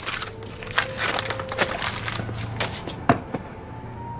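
Wrapping paper rustling and tearing in short, irregular bursts as a present is unwrapped.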